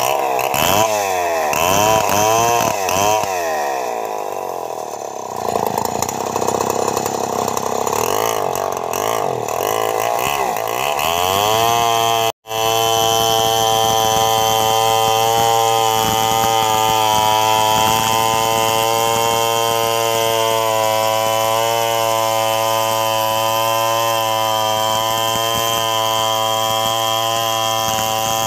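Two-stroke chainsaw ripping an Antipolo log lengthwise into boards. The engine speed rises and falls repeatedly for the first dozen seconds, cuts out abruptly for an instant, then holds a steady high note under load as the bar runs along the cut.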